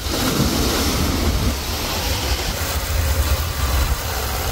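Steady rushing spray of a cable-towed wakeboard cutting through the water, over a continuous low rumble.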